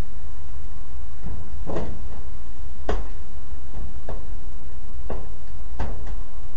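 Five sharp knocks on sheet metal, about one a second, over a steady low rumble.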